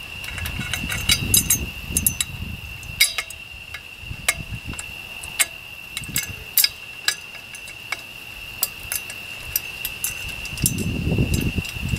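Irregular sharp metal clicks and clinks as the steel bars and latch pin of a deer cart are handled and fitted together, with low handling rumbles about a second in and near the end. A steady high insect drone runs underneath.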